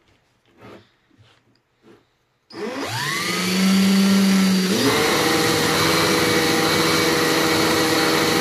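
A few light handling knocks, then a DeWalt cordless drill spins up about two and a half seconds in, its whine rising and then running steady. From about halfway, the abrasive nylon brush wheel on the drill scrubs against a wooden knob held to it, adding a rough rasping hiss under the drill's whine.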